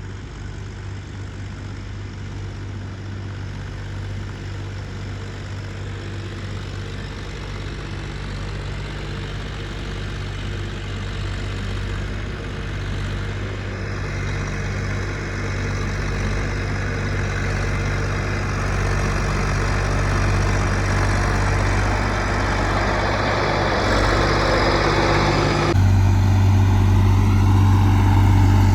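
Heavy diesel engine running steadily, growing gradually louder, with a louder, deeper hum setting in near the end.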